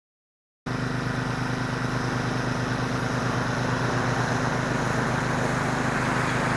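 Pressure washer running steadily, its engine droning under the hiss of the water spray. It cuts in abruptly less than a second in after dead silence.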